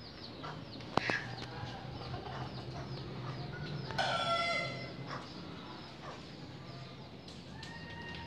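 Chickens: short, high, falling peeps repeating again and again, with one louder call about four seconds in and a sharp click about a second in.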